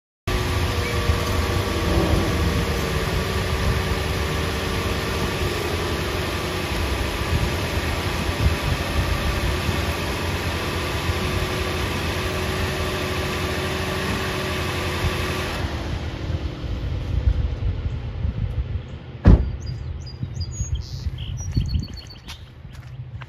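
Steady running hum of a 2021 Toyota RAV4, parked and switched on. The hum grows quieter about 16 seconds in, and a single sharp knock comes about 19 seconds in.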